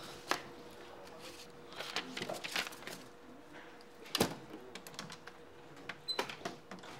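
Paper handling and clicks at an office fax machine: scattered light clicks and rustles, one sharper knock about four seconds in, over a faint steady hum that stops about then.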